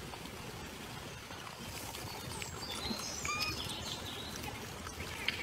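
Outdoor ambience: a steady hiss with a few short, high chirps about halfway through.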